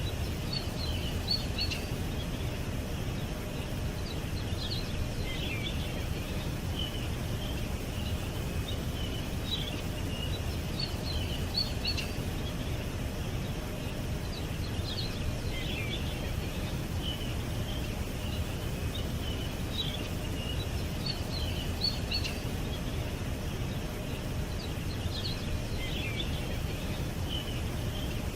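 Small songbirds chirping in short, repeated high notes every second or two over a steady low rumble of background noise.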